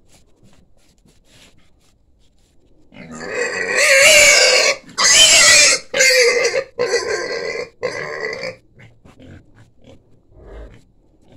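A young pig squeals loudly as it is lifted by hand out of its pen. It gives a run of shrill squeals with short breaks, starting about three seconds in and lasting about five seconds.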